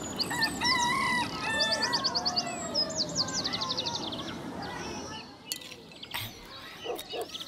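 Birds chirping and trilling, several calls overlapping in quick runs of notes and short whistles, which thin out about five seconds in. They are followed by a few light clicks and knocks.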